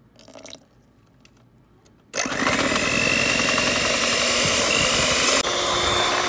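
After about two seconds of near quiet, an electric mixer with twin wire beaters starts up and runs steadily, beating cake batter, with a thin high whine over the motor noise.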